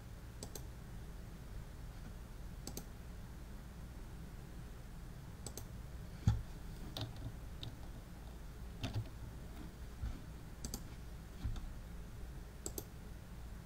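About ten scattered, sharp clicks from a computer being worked by hand, spaced a second or two apart over a low steady hum. A duller thump a little past the middle is the loudest sound.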